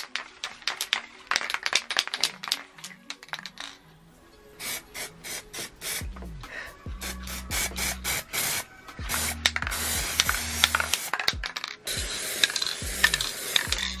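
Background music with a stepping bass line coming in about six seconds in, over rapid clicking and rattling, with a hiss in the second half.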